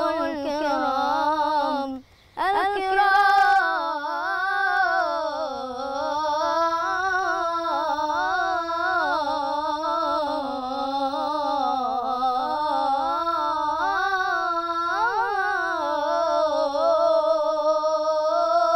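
A boy's solo voice chanting Islamic devotional inshad with no instruments, in long melismatic phrases whose pitch winds up and down. It breaks off briefly for a breath about two seconds in.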